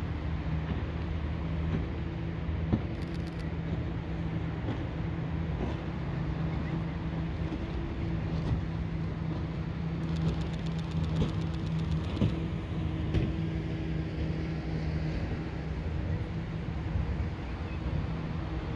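Steady low engine hum holding one pitch over a background rumble, with a short burst of rapid clicking about ten seconds in.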